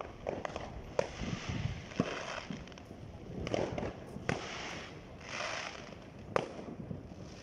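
Four sharp bangs, one to two seconds apart, with bursts of crackling hiss between them.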